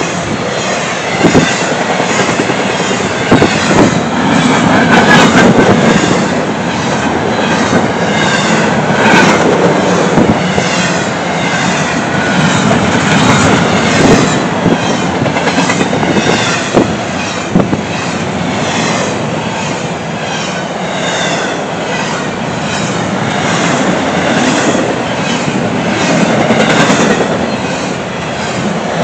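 Loud, steady rumble of a freight train's double-stack container well cars rolling past, steel wheels on rail with repeated clacks as the wheel sets go by.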